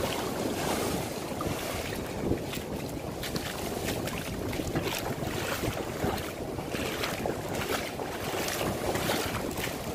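Waves breaking and splashing against a rocky reef edge, a steady wash of surf, with wind buffeting the microphone.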